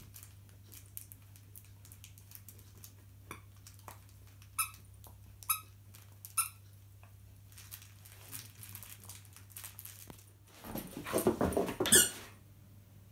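Dog chewing a squeaky plush toy, the squeaker letting out three short squeaks about a second apart, then a louder scuffle with another squeak near the end.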